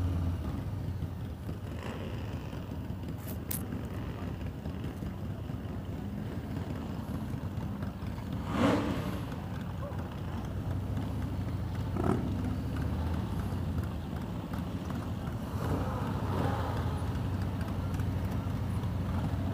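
Harley-Davidson Road Glide's V-twin, fitted with a TBR aftermarket exhaust, rumbling steadily as the bike rolls along at walking pace. A short, louder sound comes about nine seconds in and another about twelve seconds in.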